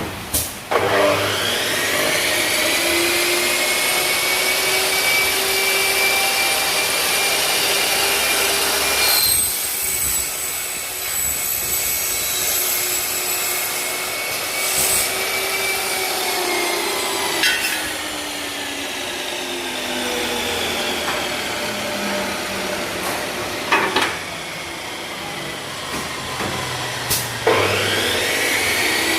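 Electric cut-off saw with a 355 mm blade starting up with a rising whine and running at speed with a steady high whine. Its pitch sags partway through, there are sharp clicks, and near the end it spins up again with another rising whine.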